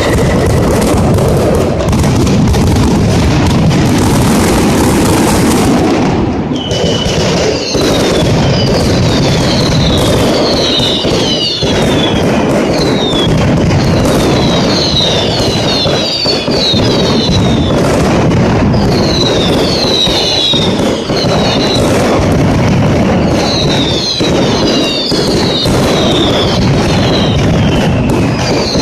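Mascletà: a dense, continuous barrage of firecrackers going off in rapid succession. From about six seconds in, many short falling whistles from whistling pyrotechnics sound over the bangs.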